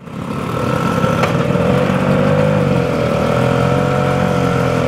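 Motor scooter engine running at a steady, slightly wavering pitch while riding along, fading in at the start.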